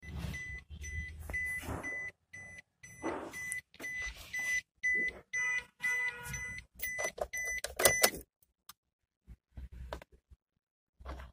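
Maruti Suzuki Wagon R's cabin warning chime beeping several times a second, with rustling and thumps of someone moving in the driver's seat. A knock, the loudest sound, comes about eight seconds in, and the beeping stops just after it.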